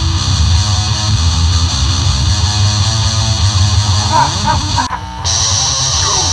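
Homemade rock song: strummed distorted electric guitar over a heavy low end, with a brief drop-out about five seconds in before the music comes back.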